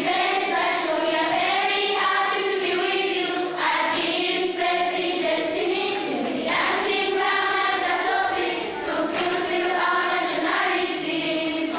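A choir of schoolchildren singing a song together.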